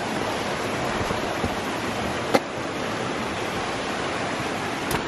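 A river rushing steadily, with a sharp tap about two seconds in and another near the end.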